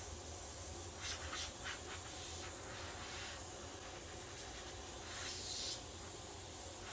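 Compressed air hissing steadily from a small leak at the regulator fittings on a pressurized air tank, swelling louder briefly near the end, with a few light handling clicks about a second in.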